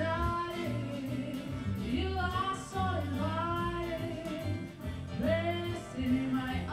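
A woman singing with a wavering, gliding voice over a backing track with a stepping bass line and beat.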